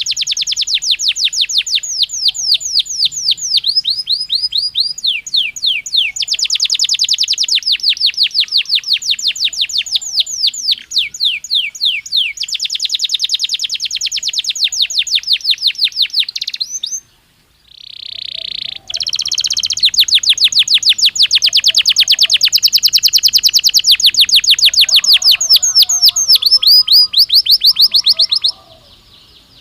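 Belgian canary singing: long runs of fast repeated high notes that change to a new trill every few seconds. It breaks off briefly about 17 seconds in, gives a short held note, then goes into another long rapid trill.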